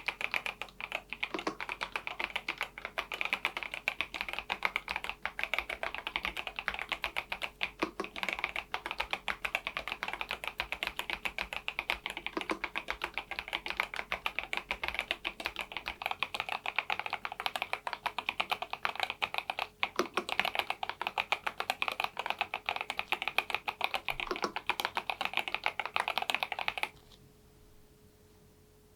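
EPOMAKER Dynatab 75X mechanical keyboard in its stock build with Flamingo linear switches, typed on in a fast, steady stream of key clacks that stops abruptly about 27 seconds in.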